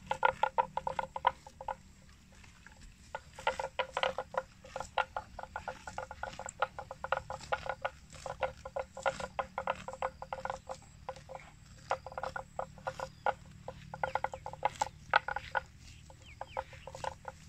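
Water buffalo grazing: quick runs of ripping and crunching as it crops and chews grass, with short pauses between bouts.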